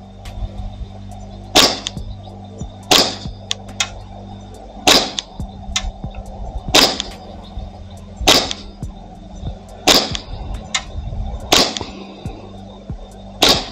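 Novritsch SSP5 gas blowback airsoft pistol firing slow single shots, eight sharp cracks spaced about one and a half to two seconds apart.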